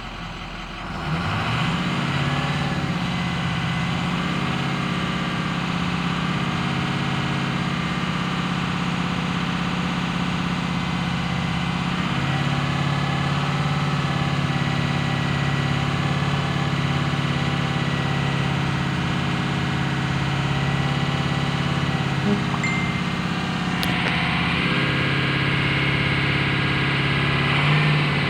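2004 Ford F-250's 6.0-litre Power Stroke V8 turbodiesel firing up about a second in, then running steadily, its note shifting slightly around twelve seconds in and again near the end.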